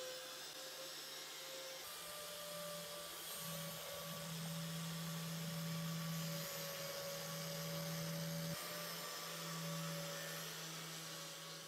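A small electric motor running steadily: a constant hum over a hiss, its note shifting slightly twice.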